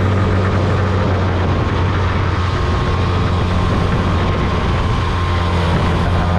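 Small outboard motor on a jon boat running steadily at speed, a constant low hum, with wind and water rushing past.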